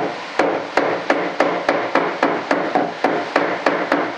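Rapid, even knocks on a mold box, about three a second, as it is jarred to settle the freshly poured casting mix so that it sets smooth against the mold.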